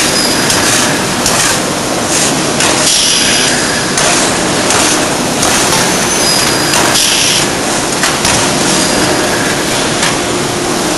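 D51 ring rolling machine working a red-hot forged ring, in loud, continuous forge-shop noise with repeated metallic knocks and clanks. Short hissing bursts come about three seconds in and again about seven seconds in.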